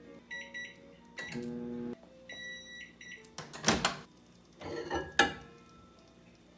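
Microwave oven beeping in short electronic tones, then two louder clunks about a second apart.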